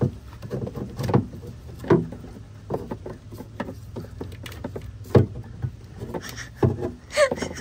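Hard plastic knocks, clicks and rubbing as a pleated air filter is worked into its plastic air filter housing on an Onan generator. The knocks come irregularly, the strongest about two, five and nearly seven seconds in, with a short squeak near the end, over a faint low hum.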